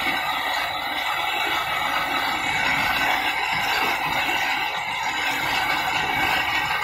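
Flat-belt-driven abrasive wheel running steadily, with the continuous hiss of a chef knife's handle being ground against it to shape it.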